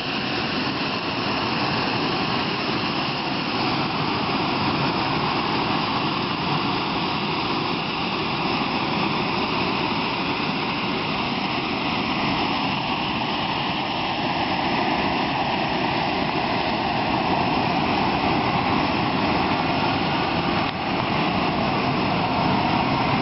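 Steady jet turbine noise from a parked Boeing 737-500, a continuous rushing roar with a whine whose pitch shifts slowly.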